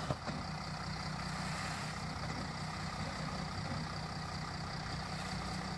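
Jeep Grand Cherokee CRD's V6 common-rail turbo-diesel engine running steadily at low revs, near idle, as the vehicle crawls slowly over a rock ledge.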